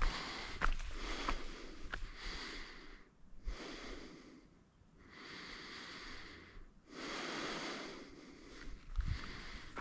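A hiker's heavy breathing close to the microphone: long, noisy breaths in and out every one to two seconds, with a few faint clicks in the first two seconds.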